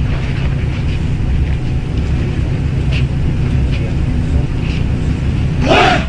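Steady low outdoor rumble. Near the end, a group of taekwondo trainees shout a kiai together.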